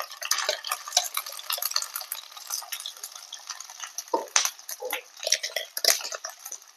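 A metal spoon scraping and clinking against a mixer jar and an iron kadhai as ginger paste is tipped into hot mustard oil, over a steady hiss of frying.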